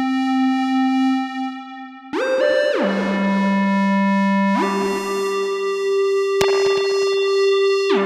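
Yamaha CS01 analog monosynth playing bright, sustained single notes through a tape echo delay, with echo repeats trailing each note change. One note is held, then a lower note comes in around two seconds, then a higher note about halfway through. A single sharp click sounds near the end.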